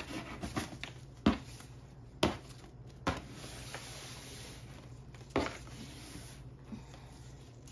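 A satin ribbon is slid and pulled off a cardboard gift box, rustling softly, with a handful of sharp taps and knocks of hands and ribbon against the box.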